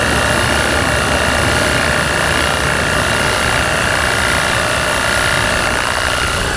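Worx Hydroshot 20V battery pressure washer running, its pump motor droning steadily while the jet of water sprays against a truck's radiator grille.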